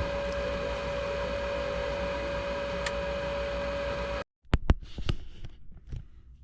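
Steady mechanical hum of a running furnace motor, with a fixed whining tone, cutting off abruptly about four seconds in. A few sharp clicks and knocks follow.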